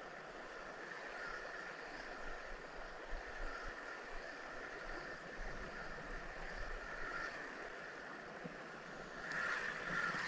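Creek water running steadily, with a few faint ticks; the water sound swells louder near the end.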